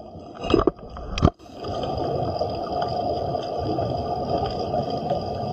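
A shark's teeth scrape and knock on an underwater camera housing twice in the first second or so. Then comes a steady underwater hiss and gurgle.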